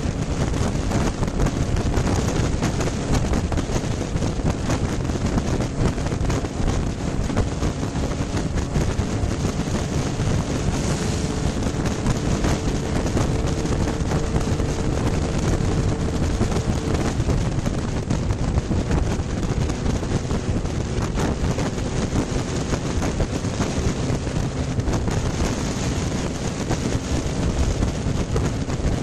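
Steady wind rush on the microphone of a camera riding on a moving motorcycle, over the drone of the motorcycle's engine at an even cruising speed.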